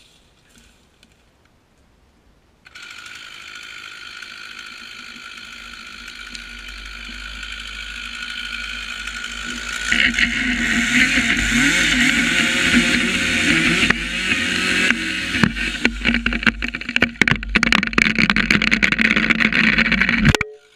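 Chainsaw cutting into a tree trunk, starting suddenly about three seconds in and growing louder about ten seconds in, its engine pitch wavering under load. In the last few seconds a run of sharp cracks and knocks comes as the tree goes over, then the sound stops abruptly.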